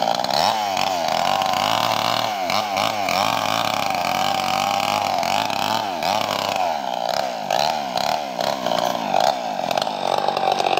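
Chainsaw's two-stroke engine running and revved up and down again and again, held at high revs for a couple of seconds in the middle.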